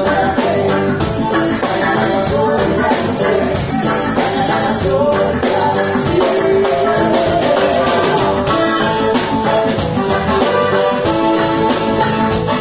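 Live band playing: electric guitar, keyboard and drum kit over a steady beat.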